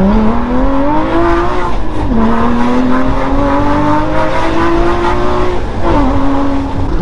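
Porsche Cayman GT4's naturally aspirated 3.8-litre flat-six, breathing through a full IPE exhaust with cat-less headers, pulling hard under full throttle. Its pitch climbs steadily through the revs and drops sharply with quick manual upshifts about two seconds in and again about six seconds in, then climbs again after each shift.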